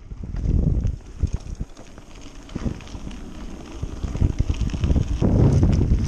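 Mountain bike riding over a bumpy dirt track: wind rumbling on the microphone, with the tyres rolling over the ground and frequent clicks and knocks as the bike rattles. The wind rumble swells near the start and again from about five seconds in.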